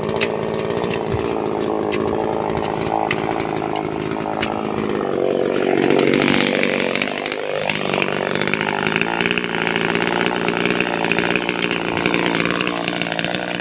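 Two-stroke top-handle chainsaw running at high revs, cutting into teak tree roots. Its engine pitch sags and then climbs back about halfway through.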